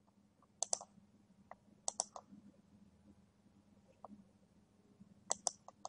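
Faint scattered clicks of computer input, single clicks and small quick clusters a second or two apart, over a faint steady hum.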